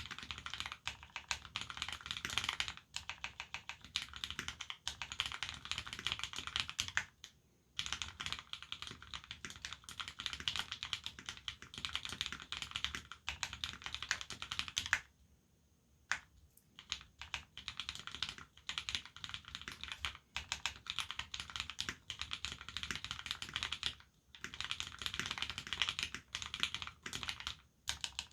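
Fast, continuous typing on an Abko AR87 mechanical keyboard with lubed Cherry Retooled Black linear switches, an aluminium plate and GMK keycaps. The run of keystrokes breaks off briefly a few times, longest about halfway through, where only a few single strokes sound.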